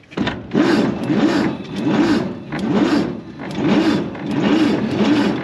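1948 Chevy 3100's 216 inline-six being cranked over on the starter without catching, its whine rising and falling in a steady rhythm about twice a second. The cranking is a test of the ignition spark after the distributor points were cleaned, and the firing is getting steady.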